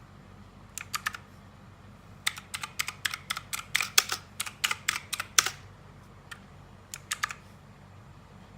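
Typing on a Rexus Legionare MX5 mechanical keyboard with clicky blue switches. A short flurry of key clicks comes first, then a quicker run of keystrokes lasting about three seconds, then a few scattered clicks.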